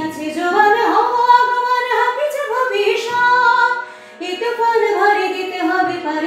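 Background music: a woman singing a melody with long held notes, breaking off briefly about four seconds in before going on.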